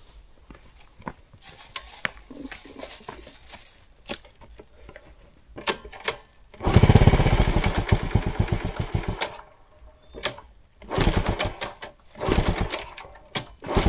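A small engine revving hard in bursts while straining up a steep climb: one loud run of about two and a half seconds past the middle, then two shorter bursts near the end, with light clicks and knocks in between.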